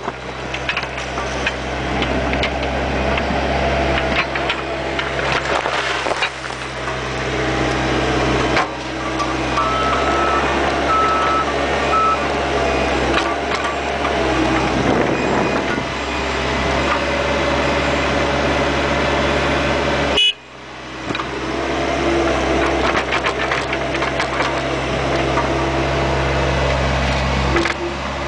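Bobcat 430 mini excavator's diesel engine running steadily under load, with a hydraulic whine that shifts in pitch as the arm and bucket move. The sound drops out briefly about twenty seconds in.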